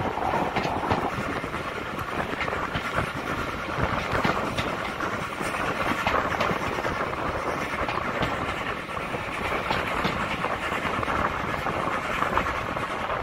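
Steam-hauled passenger train running along the line, heard from an open carriage window: a steady rumble of wheels on rail with scattered clicks.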